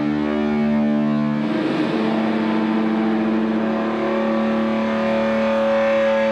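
Droning electronic soundtrack of layered held tones. The chord shifts with a brief pitch smear about one and a half seconds in, and a higher sustained tone enters about two-thirds of the way through.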